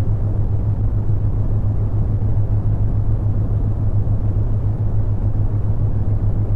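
Synthetic brown noise, a steady deep rushing that grows fainter toward the treble, laid over a constant low hum from the theta-wave tones.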